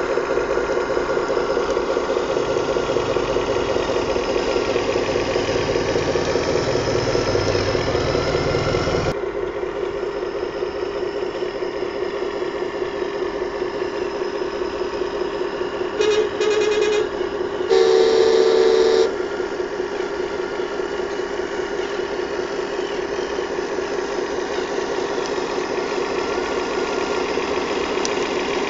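Simulated diesel truck engine idling from an RC miniature truck's sound module, a steady pulsing drone that changes abruptly about nine seconds in. About halfway through come two short horn toots, then one longer horn blast.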